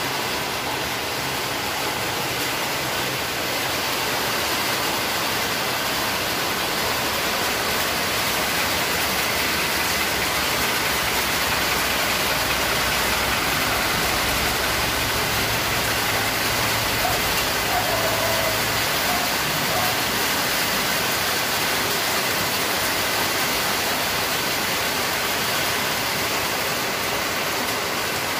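Rain falling steadily, a loud even hiss throughout. A vehicle engine runs low underneath it for a stretch in the middle.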